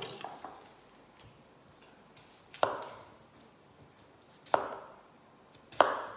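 Knife cutting through a raw potato on a plastic cutting board: three sharp knocks of the blade striking the board, a second or two apart, each fading quickly.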